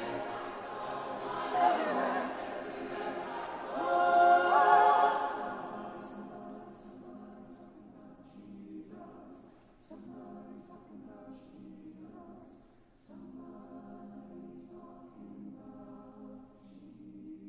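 Mixed choir singing an a cappella gospel spiritual in a large church. It sings loud chords that climb to a peak about four seconds in, then drops to soft, held chords broken by short pauses.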